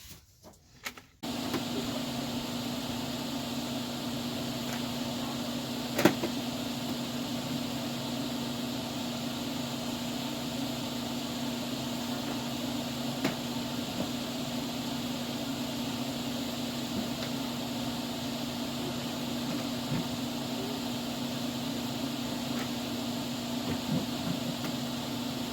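A motor or engine running steadily at constant speed with a low hum, starting abruptly about a second in. A sharp knock about six seconds in and a few fainter knocks later.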